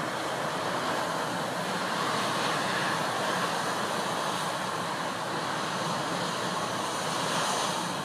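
Heavy storm surf breaking and washing over a rock ledge in gale-force wind: a continuous rush of water and wind. It swells a little about two seconds in and again near the end.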